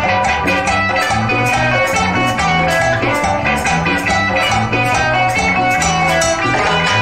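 Band playing an instrumental Amazonian cumbia: a lead electric guitar melody over bass guitar and drums with a steady beat.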